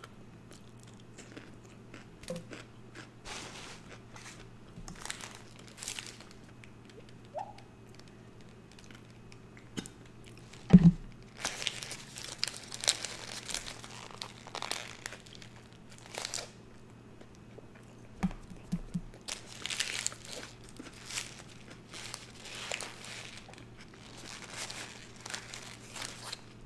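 Close-up eating sounds: chewing and crunching bites of a cheeseburger, with its paper wrapper crinkling in the hands. One loud thump about eleven seconds in.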